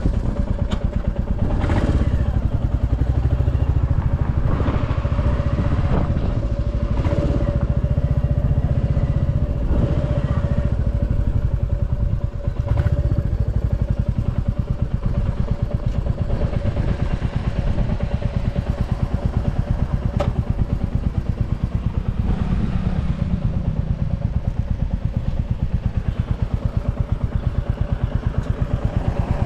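Royal Enfield Classic 350's single-cylinder engine running at low speed, with a steady, even pulse.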